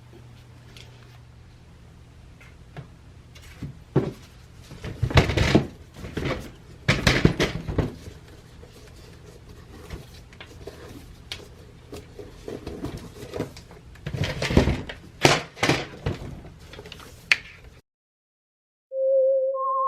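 Things being handled and set down on a work surface: irregular knocks, thumps and rustles over a low steady hum, cutting off suddenly near the end.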